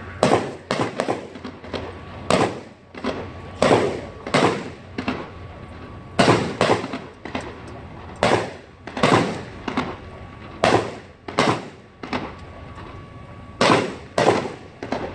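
Gunfire in irregular single shots, roughly one to two a second, each shot ringing off in an echo, with a pause of about a second and a half near the end.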